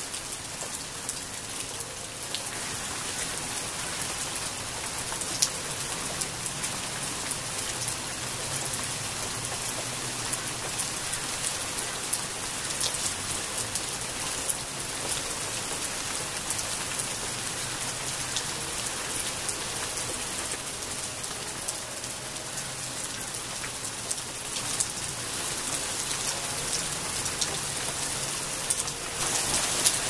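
Steady rain falling on garden foliage, with many single drops tapping on the leaves; it grows a little heavier near the end.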